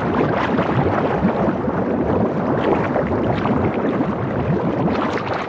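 Steady underwater water ambience: a dense rush of bubbling, gurgling water with many small crackles.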